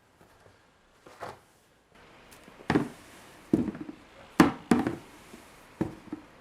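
Snow shovel thudding into and striking packed snow: about six irregular, sharp thuds, the loudest about four seconds in.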